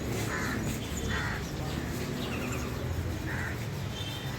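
Short harsh bird calls, two close together near the start and one more about three seconds in, over a steady low background rumble.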